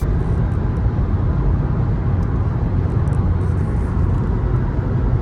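Car driving along a road: a steady rumble of engine and tyre noise that is strongest in the low end.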